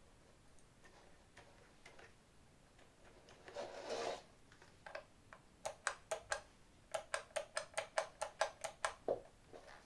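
A brief rustle, then a run of sharp clicks: a few spaced ones, then about a dozen in quick succession, roughly six a second.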